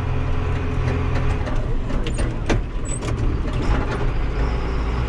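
Farm tractor engine running steadily under load, heard from inside the cab, with a couple of sharp clicks about two seconds in.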